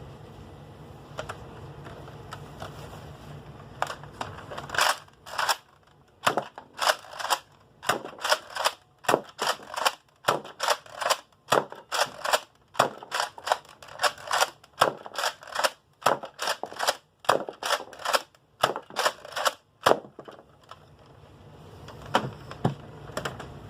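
Spring-powered Nerf foam-dart blaster being primed and fired over and over, a quick run of sharp plastic clacks and pops about two a second that lasts around fifteen seconds. A low steady hum is heard before and after the firing.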